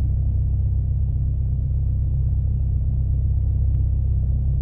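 Piper Archer II's four-cylinder Lycoming engine and propeller running steadily at low power while the plane waits short of the runway, a deep even drone heard inside the cockpit.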